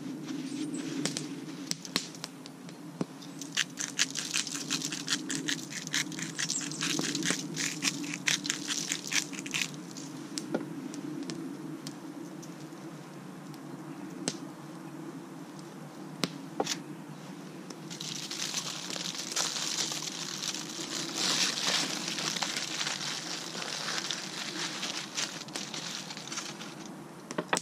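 Aluminium foil crinkling and crackling as it is handled, in irregular bursts of sharp crackles early on and a denser, continuous rustle from about two-thirds of the way through, over a steady low hum.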